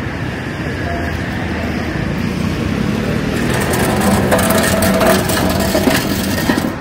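A road vehicle passing close by over a steady street noise. It grows louder and rattlier over the second half, then drops off abruptly near the end.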